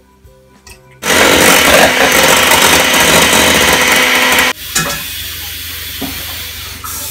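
Electric hand mixer running at speed, its beaters whipping egg whites in a stainless steel bowl; it starts abruptly about a second in and stops suddenly some three and a half seconds later. Faint music comes before it and a quieter steady noise follows.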